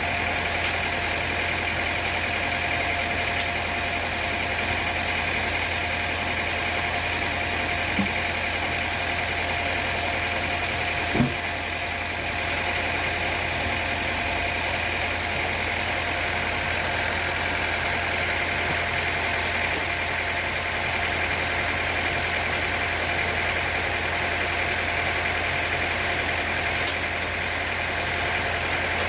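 Sawmill machinery running steadily with a constant hum and whine, and two short knocks about eight and eleven seconds in.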